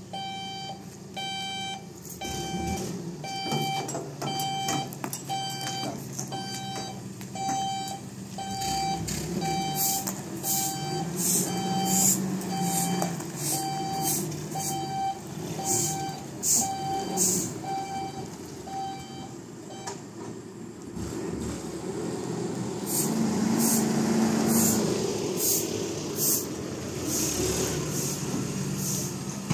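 Vehicle reversing alarm beeping at an even pace, about one and a half beeps a second, over a running engine. The beeping stops about two-thirds of the way through while the engine keeps running.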